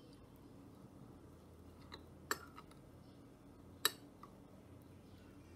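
Metal spoon stirring potato starch into water in a ceramic bowl, with two sharp clinks of the spoon against the bowl about a second and a half apart.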